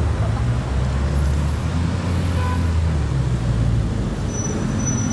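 Slow-moving traffic: car engines running at low revs, a steady low rumble with no sharp revving.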